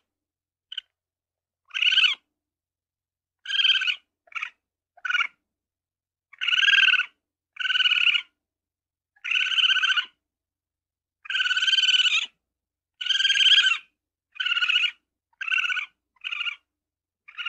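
Ferret giving a series of short, high-pitched squeaks, about a dozen of them, each under a second long and coming irregularly every second or two.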